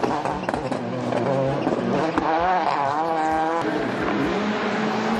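Skoda Octavia WRC rally car driven hard, its engine revving and falling repeatedly with throttle and gear changes, the pitch climbing about two seconds in and dropping back near the end.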